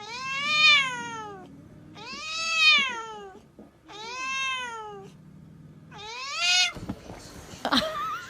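Domestic cat meowing: four long, drawn-out meows about a second apart, each rising and then falling in pitch, with a few short clicks near the end.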